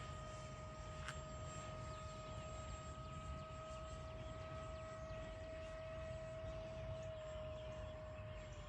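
Freewing 70 mm F-22 Raptor's electric ducted fan whining steadily in flight, faint and distant, its pitch dropping slightly near the end.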